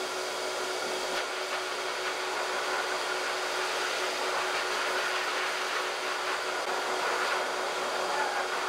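High-velocity dog dryer blowing steadily through its hose nozzle: a constant rush of air with a faint steady hum, unchanging throughout.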